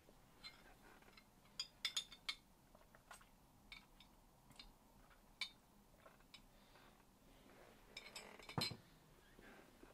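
A few light clinks and taps of a glass drinking jar being handled and set down on a wooden desk, the loudest knock near the end.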